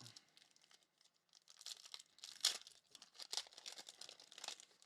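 Foil trading-card pack wrapper crinkling and tearing as a pack is opened, a run of irregular crackles with the sharpest one about two and a half seconds in.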